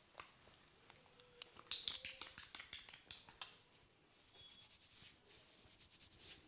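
Barber's hands working a head massage: a quick run of sharp slaps and clicks, loudest at the start, for a couple of seconds, then soft rubbing against hair and skin.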